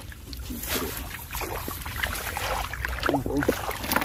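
Wind rumbling on the microphone, with rustling and wet squelching from hands and bare feet working through grass and mud.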